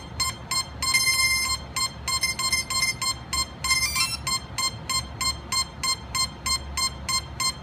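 Quanum Nova quadcopter's electronics beeping on power-up: a short start-up sequence with a longer tone and a rising warble, then an even run of short beeps, about three a second. The repeating beeps signal that the power-up has not gone through cleanly, which the owner reads as the fault still being there.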